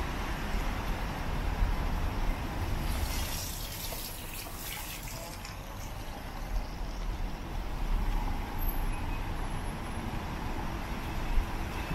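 City traffic on a rain-wet road: a steady low rumble of vehicles with watery tyre hiss. A louder hiss swells and fades about three to five seconds in, as a vehicle passes through the wet.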